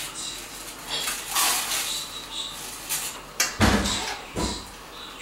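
Plastic packaging rustling and crinkling in short bursts as a telescope's upper tube assembly is lifted out of its wrapping. Two dull thumps come about three and a half and four and a half seconds in as the part is handled.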